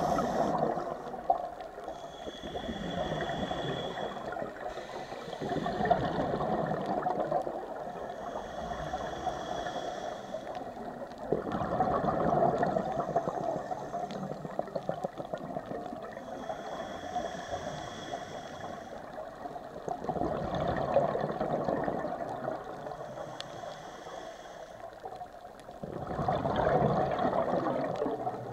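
Scuba regulator breathing underwater: each breath is a hissing inhale with a faint high whistle, followed by a louder gurgling rush of exhaled bubbles, five breaths in all at an even, slow pace.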